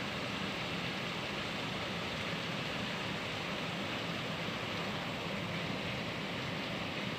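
Heavy rain falling steadily, an even hiss with no breaks or single drops standing out.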